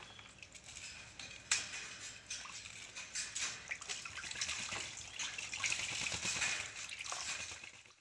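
A swamphen bathing in a plastic basin of water, splashing and sloshing with its body and wings in quick, irregular splashes that get busier after about three seconds.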